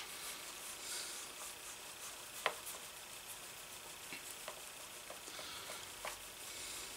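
Fingers rubbing cream conditioner into a leather holster: a faint, soft rubbing hiss of skin on leather, with a few small clicks, the sharpest about two and a half seconds in.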